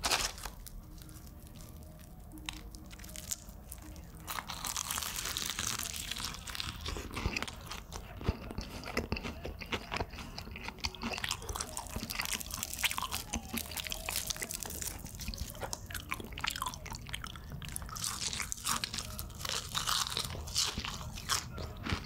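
Close-up crunching and chewing of crispy fried chicken, mouth sounds at a microphone. A few clicks at first, then steady crunching from about four seconds in.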